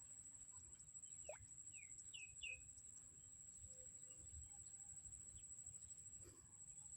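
Faint bird calls: four or five short, falling chirps between about one and two and a half seconds in, over a steady high whine and a low rumble.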